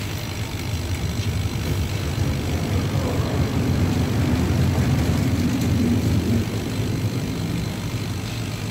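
CO2 laser cutting machine running while it cuts 20 mm acrylic: a steady low mechanical drone that swells a little in the middle and eases near the end.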